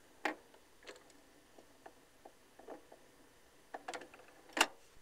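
Vinyl 45 rpm single turning with the music finished: the stylus is riding the run-out groove, giving faint surface noise and irregular clicks and pops, with a louder pop just after the start and another near the end.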